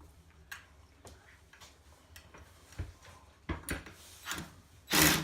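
Light clicks and taps of a metal blind bracket and screws being handled and positioned. Near the end comes a short, loud burst of a power drill driving a screw into the bracket.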